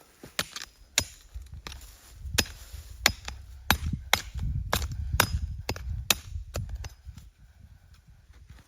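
A tool striking wood: about a dozen sharp chopping or hammering blows at uneven spacing, with a low rumble underneath through the middle.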